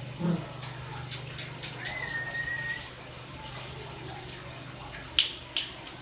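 Caged songbird calling: a run of sharp chips, a short whistle, then a long, high, shrill note, and two more sharp chips near the end.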